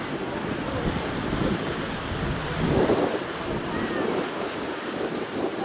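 Wind buffeting the microphone over the sound of the sea washing, an uneven rushing noise that swells louder about halfway through.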